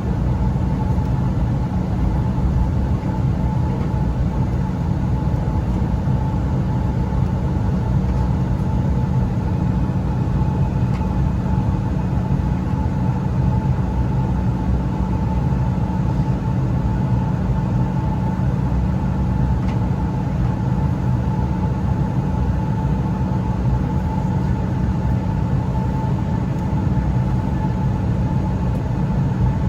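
Steady cabin noise inside an Embraer E175 regional jet on the ground after landing: a constant low rumble with a steady mid-pitched hum.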